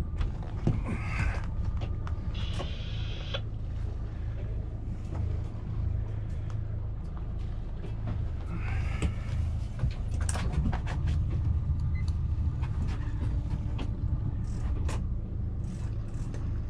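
Sailing catamaran's engine running steadily in gear, a low even hum, with a few brief higher squeaks and clicks over it.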